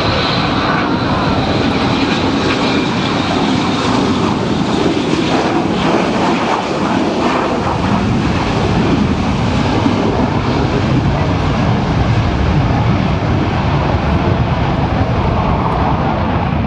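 The four F118 turbofan jet engines of a B-2 Spirit stealth bomber on a low pass with landing gear extended: a steady jet rush with a high whine at the start. The low rumble grows from about eight seconds in as the bomber goes past and away.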